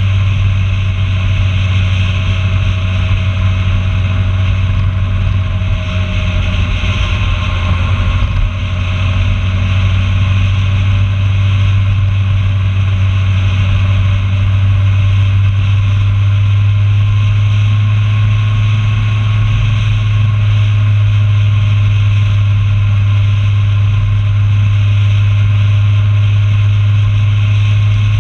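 Vehicle engine running steadily at cruising speed, a loud low hum under heavy wind rush on the microphone.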